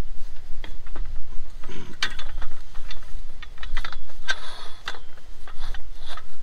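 Metal tripod sprinkler stand being set up, its legs knocking and rattling as they are spread and adjusted: a string of irregular metallic clicks and clanks.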